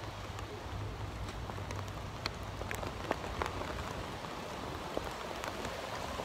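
Rain falling steadily, with scattered drops ticking sharply on a surface close by.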